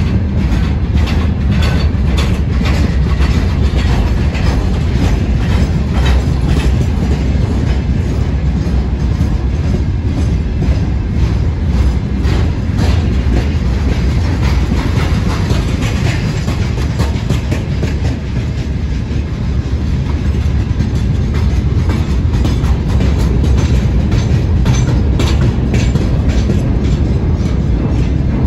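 Freight train of open-top gondola wagons rolling past close by: a loud, steady rumble of steel wheels on rail with a rapid, continuous clickety-clack of knocks as the wheelsets pass over the rail joints.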